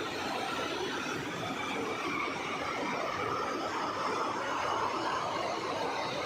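River in flood after the first rain, its floodwater rushing with a steady, even sound.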